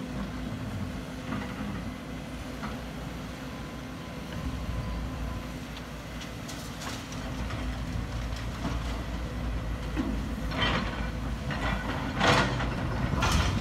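Diesel engines of two Sumitomo SH210 hydraulic excavators and dump trucks running with a steady low drone as the excavators dig and load. Near the end there are several loud clatters as laterite is dumped into the trucks' steel beds.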